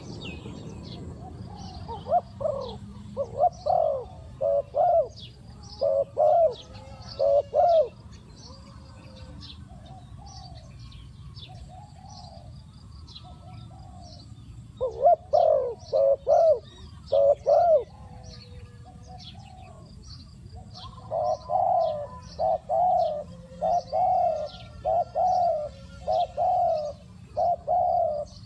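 Spotted dove calling as a decoy to lure wild doves: repeated cooing phrases of several notes, loud groups near the start, in the middle and through the second half, with softer coos between. Small birds chirp faintly and high in the background.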